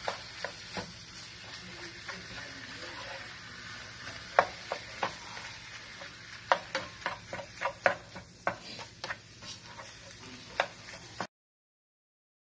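Ground beef frying with a steady sizzle in a stainless steel skillet while a spatula stirs and breaks it up, knocking and scraping against the pan. The knocks come as a run of sharp clicks, several a second, through the second half. The sound cuts off suddenly near the end.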